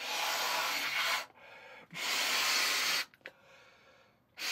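A person blowing up a balloon by mouth: two long breaths into it of about a second each, with quiet pauses between, and a third starting near the end.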